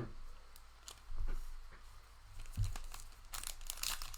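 Plastic wrapping of trading-card packaging crinkling and tearing as it is opened. Faint scattered crackles at first, turning into dense, louder crinkling for the last second or so.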